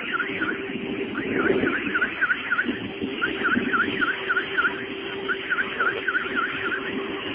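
Electronic alarm-like chirping: runs of five or six quick, identical chirps that dip and rise in pitch, with short pauses between runs, over a steady low hum and background noise.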